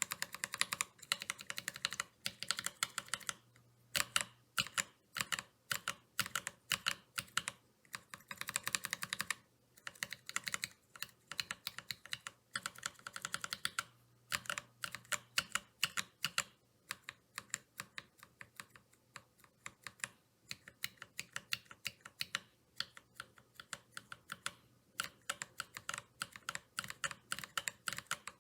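Mechanical keyboard fitted with Kailh x AregsKeyboard Purple Potato tactile switches (POM housings and stem) being typed on in fast bursts with short pauses. The keystrokes sound pretty clacky.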